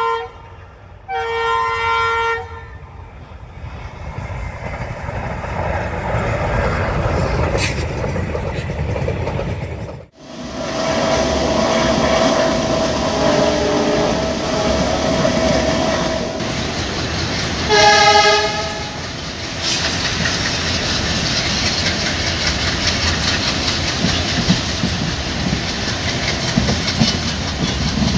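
Indian railway locomotive horn sounding two short blasts, then the rising rumble of a train running on the line. After an abrupt cut, train wheels clatter steadily on the rails, with one more horn blast about two-thirds of the way through.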